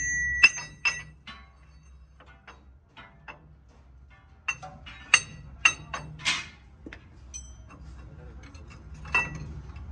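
Hammer blows on a steel truck leaf spring, three sharp ringing metallic strikes in the first second. Then scattered lighter metal clinks and taps as the steel spring parts are handled, a cluster midway and one more near the end.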